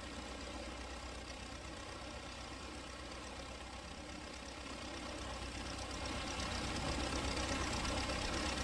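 Small propeller plane's engine running steadily, as a cartoon sound effect, slowly growing louder over the second half.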